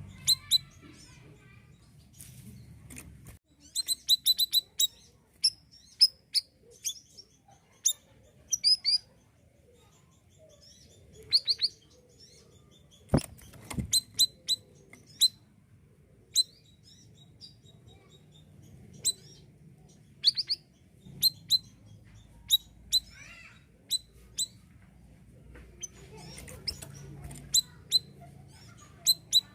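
A siri-siri songbird giving short, sharp, high chirps, singly and in quick rapid clusters, with pauses between them. A single sharp knock sounds about 13 seconds in.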